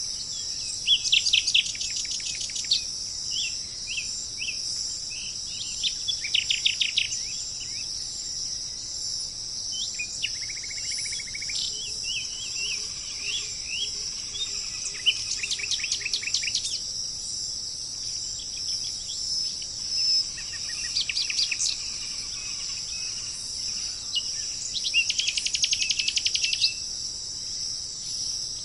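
Birds singing over a steady, high-pitched chorus of insects such as crickets. Several times, a bird gives a phrase of about a second and a half of fast repeated notes, with scattered short chirps in between.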